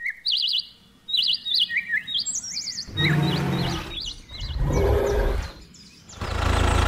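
Birds chirping in quick warbling phrases for about three seconds, then two long snores, one after the other.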